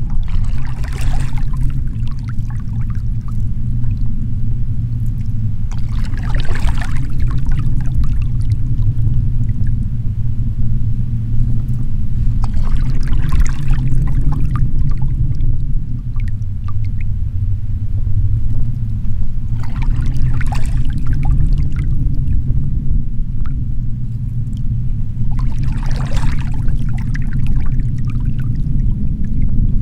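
Canoe paddle strokes: water splashing and trickling off the paddle blade about every six or seven seconds, five times, over a steady low rumble.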